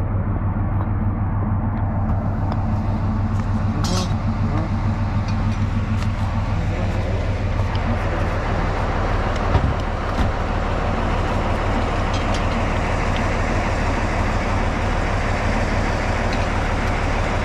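Diesel locomotive engine idling steadily, with a few sharp metallic knocks, one about four seconds in and another near ten seconds.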